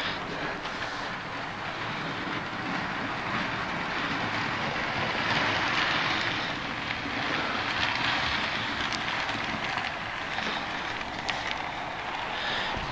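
Model trains running on a layout's track: a steady rolling rumble and motor hum that swells a little midway, with a few faint clicks.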